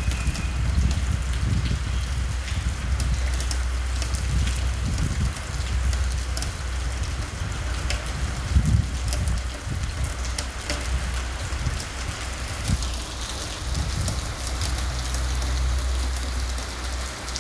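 Steady rain, with many separate drops ticking on a surface over an even hiss, and a low, fluctuating rumble of mild wind underneath.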